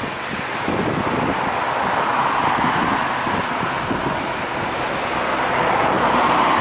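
Jet engine noise from an Airbus A320-232's IAE V2500 engines: a steady rush that swells about two seconds in and again near the end. Wind buffets the microphone throughout.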